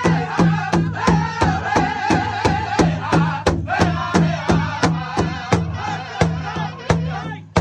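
Powwow drum group singing together over steady unison strokes on a large shared hide drum, about three beats a second. High male voices hold long wavering phrases that fall in pitch, with short breaks between phrases.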